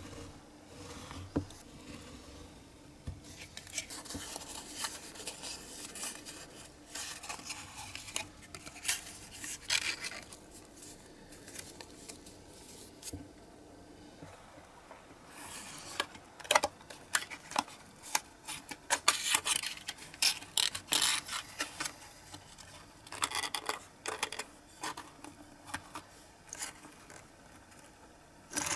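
Thin printed card being cut with a snap-off craft knife along a metal ruler, then creased and folded into a small box: uneven scraping, crackling rustles and sharp clicks that come in clusters, densest in the second half.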